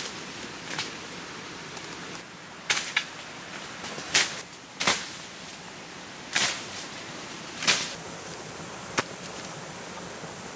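A long wooden stick whacking the branches of a walnut tree to knock the nuts down: about eight sharp cracks at uneven intervals, some followed by a brief rustle of shaken leaves.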